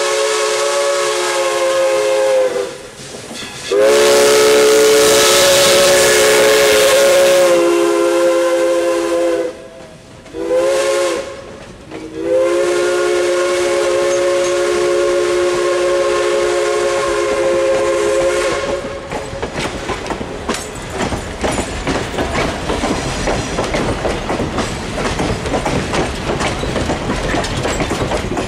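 Steam whistle of Central Railroad of New Jersey 0-6-0 #113, a chord of several notes, sounding the grade-crossing signal: long, long, short, long. After the last long blast ends, the passenger cars' wheels clatter steadily over the rail joints as the train rolls past close by.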